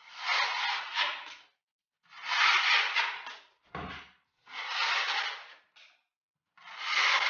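Wide steel filling knife scraping across a plaster wall in four strokes of about a second each, roughly every two seconds, with a short knock just before the middle.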